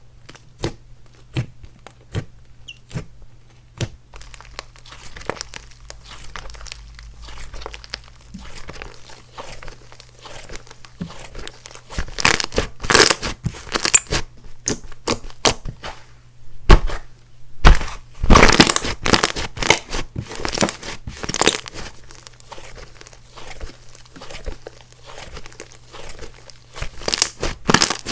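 Hands squishing, pressing and stretching slime, giving a stream of sticky crackles, pops and clicks. The sound swells into louder, denser crackling twice: once about twelve seconds in and again around eighteen to twenty-two seconds.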